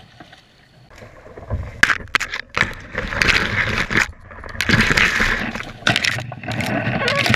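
Branches and reed stems scraping, crackling and snapping against a sit-on-top fishing kayak and its camera boom as the boat is paddled into overhanging brush. It starts faint and turns loud and busy after about a second, with many sharp snaps.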